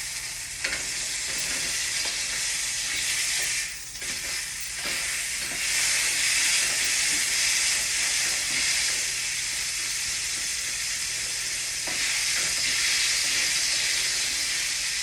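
Food frying in a pan: a steady sizzle, dipping briefly about four seconds in, with a few faint clicks.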